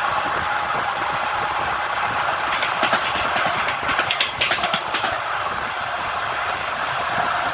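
Train wheels running over the rails: a steady rumble with a run of sharp clacks in the middle as the wheels cross rail joints.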